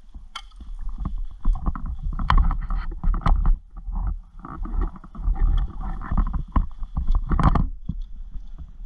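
Wind rumbling on the microphone with uneven rustling bursts and scattered sharp clicks and knocks, louder around the middle of the stretch.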